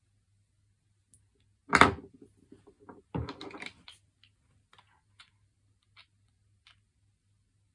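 Glass nail polish bottles knocking and clinking together in a plastic basket as a toddler rummages through them. There are two louder knocks, each followed by a short clatter, then scattered light clicks.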